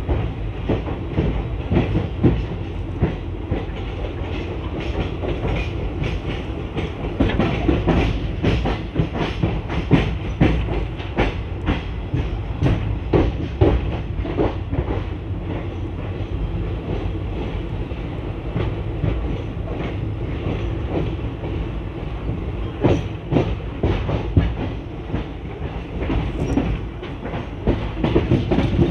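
ICF passenger coach wheels clattering over rail joints and yard points as the train pulls out of the station, sharp knocks coming in irregular clusters over a steady low rumble of the running gear.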